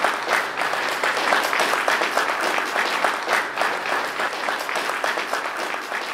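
Audience applauding, growing a little fainter near the end.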